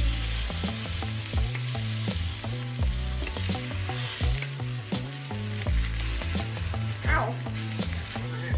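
Halved eggplants sizzling as they sear in hot oil in a frying pan and are turned with tongs. Background music with a steady bass beat plays under it.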